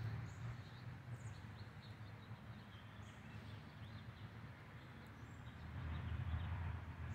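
Quiet outdoor ambience: scattered faint bird chirps over a low, uneven rumble that grows louder about six seconds in.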